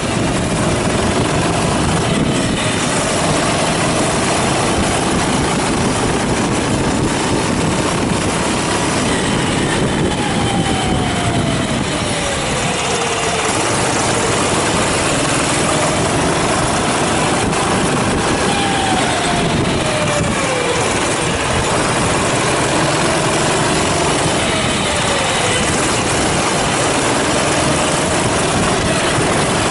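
Racing kart engine at high revs, its pitch climbing and then dropping away sharply several times, under a steady loud rushing noise.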